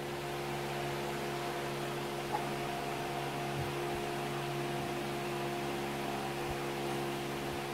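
Steady hum of a mains-powered appliance running in the room, even and unchanging, with a few faint soft bumps.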